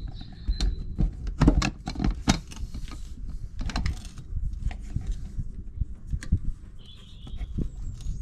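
Irregular light metallic clicks and clinks of a Thule Elite G2 bike rack's aluminium frame and lower mounting fixing being handled and tightened by hand.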